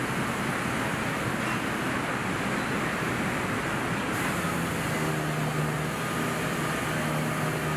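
Steady assembly-plant floor noise, an even rushing din, with a low machine hum coming in about halfway through.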